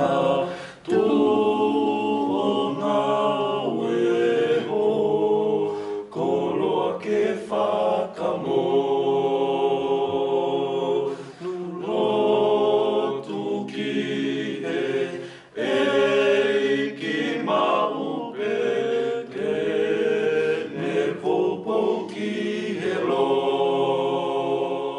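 A choir singing in harmony, long held notes in phrases with short breaks between them.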